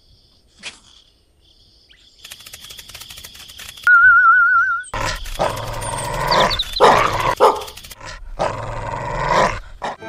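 A dog barking, in three loud spells over the last five seconds, after a short warbling whistle about four seconds in.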